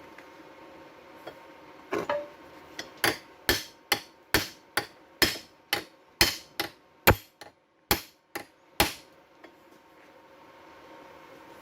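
Hammer blows, about fifteen sharp strikes at roughly two a second, unevenly spaced, that then stop.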